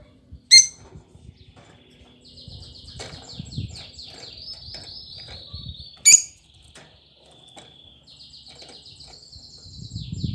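Small cage bird singing: two long runs of rapid, high trilled notes, broken by a loud sharp chirp about half a second in and another about six seconds in.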